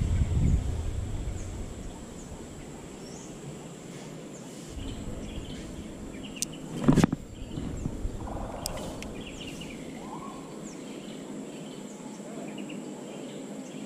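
Quiet outdoor ambience with faint, scattered bird chirps. A single sharp knock comes about halfway through.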